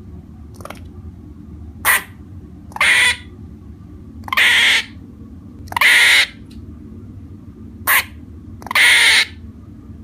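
Squirrel giving a series of harsh, raspy calls, about seven in all: brief ones mixed with longer drawn-out ones, a second or two apart, over a steady low hum.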